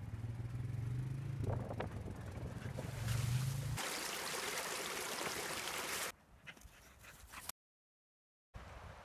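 A low steady hum for the first few seconds, then shallow creek water running over rocks for about two seconds, then quiet with a short dead gap.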